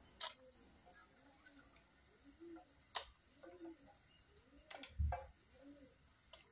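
A few faint, sparse clicks and light taps, with one soft thump about five seconds in, as raw peanuts are dropped by hand into a steel pressure cooker of vegetables.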